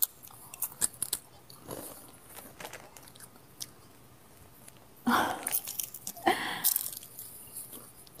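Crunching and chewing on a crisp snack: a few scattered small crunches, then two louder bouts of crunching a little past the middle.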